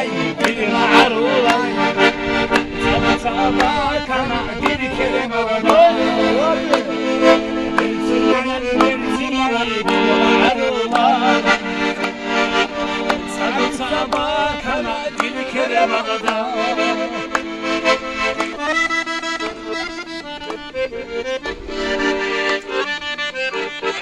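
An accordion playing a lively Avar folk tune, with hand claps keeping time alongside.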